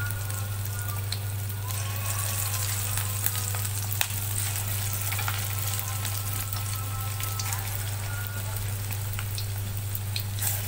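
Moong dal pakoras deep-frying in hot oil in an aluminium pot: a steady sizzle with scattered crackles, over a steady low hum. Near the end a spoonful of batter drops into the oil.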